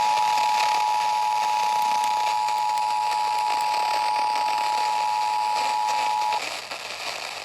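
Emergency Alert System attention signal: the steady two-tone 853 and 960 Hz alert tone heard over an FM radio through heavy static hiss, opening a Required Monthly Test. The tone cuts off about six seconds in, leaving only the hiss.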